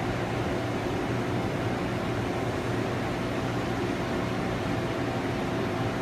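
Cincinnati Milacron Cinturn CNC lathe running, a steady machine hum with a few held tones over an even hiss.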